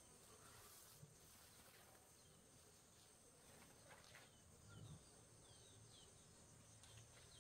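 Near silence: faint rural ambience with a few faint bird chirps about two-thirds of the way through.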